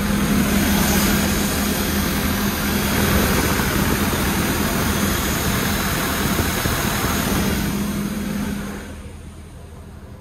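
Excavator diesel engine running steadily at low idle, on its test run after an engine oil leak repair, with a steady hum under it. The level drops sharply about nine seconds in.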